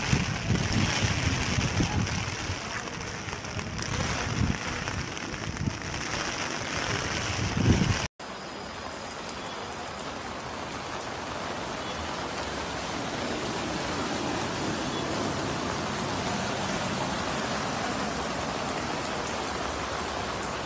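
Heavy rain falling on a waterlogged street, a steady even hiss. For the first eight seconds, gusts of wind buffet the microphone with irregular low rumbles over the rain; then it cuts to steady rain alone.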